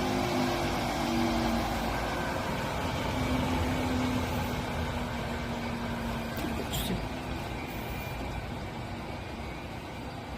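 Drill-sharpening grinder's motor and grinding wheel running with a steady hum that slowly gets quieter. A light click about seven seconds in.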